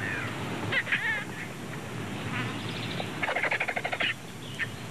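Vultures and marabou storks squabbling over a carcass. Harsh, chattering calls, with short sliding calls about a second in and a run of rapid pulsed cackling in the second half.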